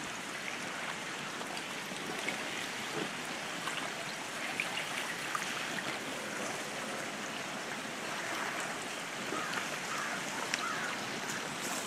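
River water running steadily past the bank, carrying a mass of broken ice floes, with small scattered clicks of drifting ice chunks knocking together.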